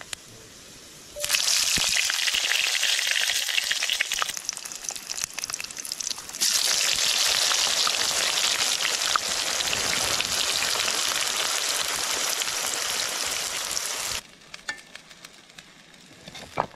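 Hot oil sizzling in a kadhai on a wood fire. Whole spices (cumin seeds, bay leaves) fry first, then chopped onions are tipped in about six seconds in and the sizzle gets louder. It cuts off suddenly a couple of seconds before the end.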